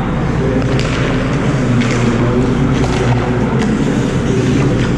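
Ice rink ambience: a steady, loud rumble with several sharp clacks of hockey sticks and pucks, about five in all, echoing in the arena.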